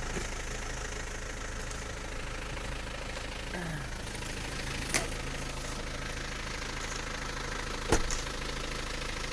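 An engine running steadily at an even pitch, with two sharp knocks about five and eight seconds in, the second the louder.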